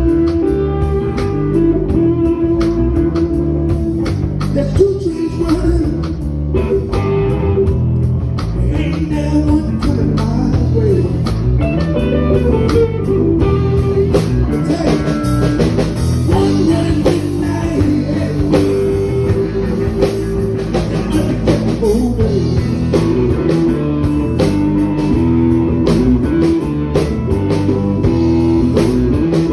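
Live blues band playing loudly: electric guitar lead lines with bending notes over bass guitar and a steady drum beat.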